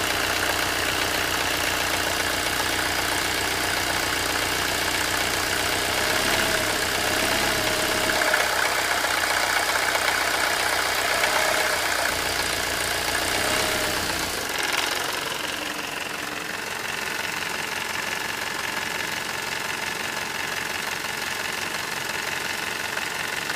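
Mercedes-Benz W124 200D four-cylinder diesel engine idling with a rattling clatter ("klappern"), which the owner says is worst when the engine is cold and gone once it is warm. About two-thirds of the way through, the deep rumble drops away while the clatter carries on.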